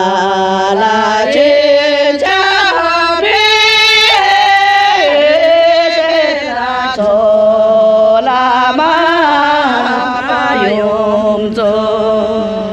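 A voice singing a slow melody in long held notes that slide from one pitch to the next.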